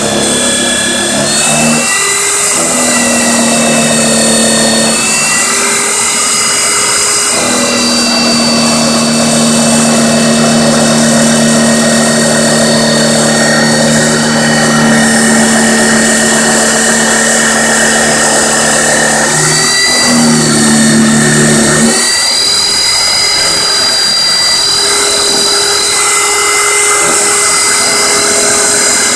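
Homemade concrete-frame CNC milling machine cutting an aluminium bar with an end mill: a loud, steady machining noise with a spindle whine. Hum tones change pitch or drop out every few seconds as the cutting moves change.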